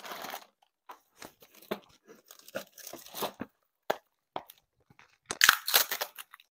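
Florist's anchor tape being pulled and torn from its roll, a scattered run of short crackles and tearing sounds with a louder burst of tearing near the end.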